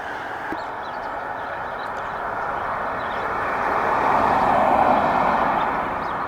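A vehicle passing on the street, its tyre and road noise growing louder to a peak about four to five seconds in and then fading.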